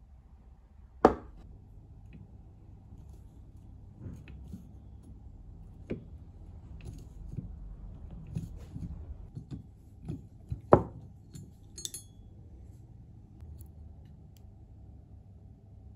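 Small metal clicks and clinks as a screwdriver and tweezers work a rusty screw on an old cast-iron hand-cranked drill. Two sharp knocks, about a second in and near eleven seconds in, are the loudest sounds.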